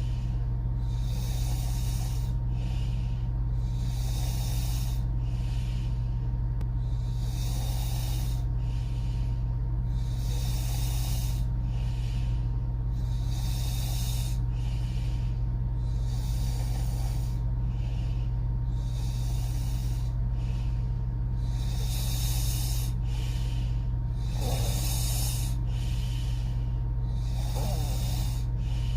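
A sleeping woman breathing noisily through her open mouth, a hissing rush of air every second or two with a faint snoring rattle on a couple of breaths near the end. A steady low hum runs underneath.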